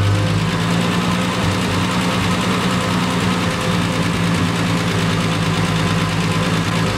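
Triumph TR6 2.5-litre straight-six idling while a carburettor piston is lifted to check the mixture: the engine note rises about half a second in, holds, and falls back near the end. An idle that rises this way when the piston is lifted is the sign of a rich mixture on that carburettor.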